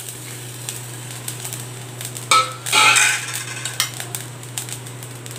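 Stainless steel bowl and pan clattering together about two and a half seconds in, a short run of metal knocks and scraping with a brief ring, as grated coconut is tipped and tapped out into the pan. A steady low hum runs underneath.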